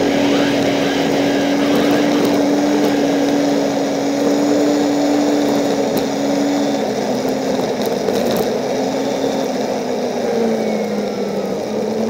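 A small vehicle engine running at a steady cruising speed while riding. Its pitch dips a little about ten seconds in and picks back up near the end.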